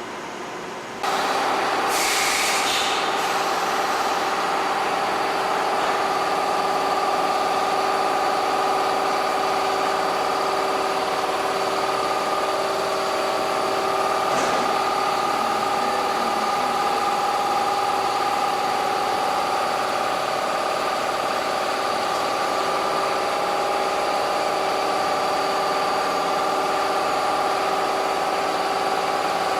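NC woodworking machine switching on about a second in and then running steadily with a fixed-pitch whine, with a short hiss just after it starts.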